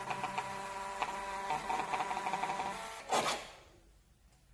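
Built-in receipt printer of an InBody BPBIO750 blood pressure monitor running as it feeds out the printed results slip. It stops about three seconds in, followed by a brief loud rasp as the slip is pulled free.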